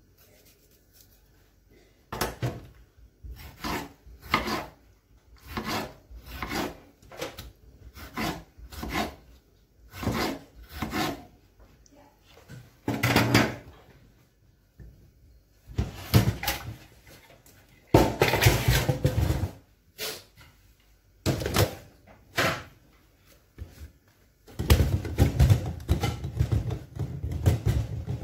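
Repeated rasping, scraping strokes from kitchen work, about two a second, then longer irregular scraping bursts and a denser stretch near the end.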